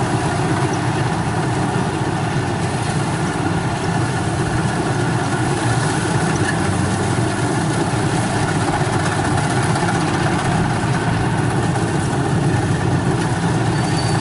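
Kubota DC70 rice combine harvester working through lodged rice: its diesel engine and machinery drone steadily under load, with several steady hums layered together.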